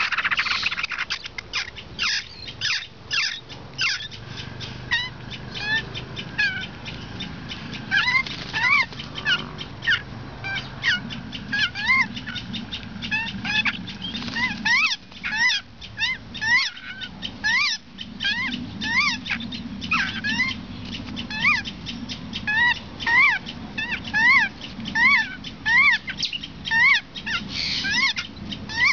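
White-crested laughingthrush chicks calling: a steady run of short, rising, squeaky call notes, about one a second and sometimes overlapping.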